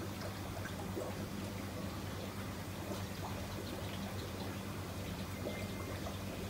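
Water trickling and splashing over a steady low mechanical hum.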